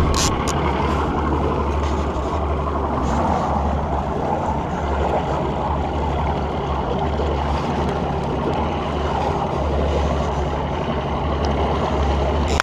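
Boat outboard motor running steadily, a constant low drone under the rush of churning prop wash and wind.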